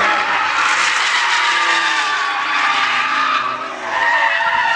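Audi drift car's engine revving up and down as it slides sideways, with tyres squealing and skidding on the tarmac.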